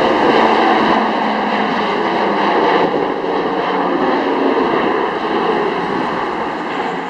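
Bombardier Dash 8 Q400's two turboprop engines at takeoff power as the airliner climbs out, a loud steady engine and propeller noise with a few held tones running through it, easing slowly.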